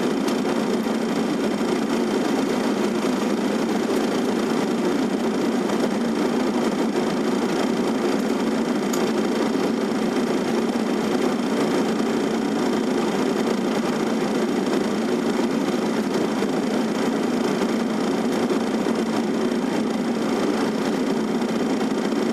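Steady, even hum and rush of an airliner's cockpit on final approach: engine and airflow noise heard from inside the flight deck.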